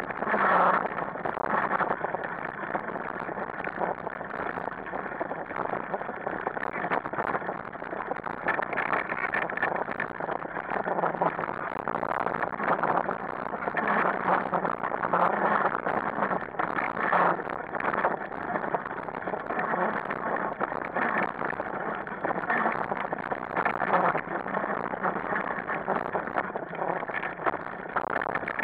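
A wheeled rig pulled fast by two dogs over a rough forest trail, heard from its handlebar. It makes a steady rush of wheel and trail noise with constant rattling and knocking.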